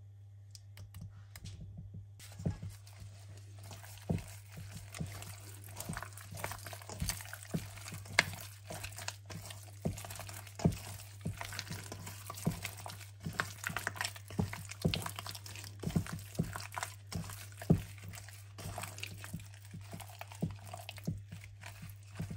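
Gloved hand kneading raw pork chops in a thick sauce in a stainless steel bowl: wet squelching and smacking with irregular sharp clicks. It starts about two seconds in.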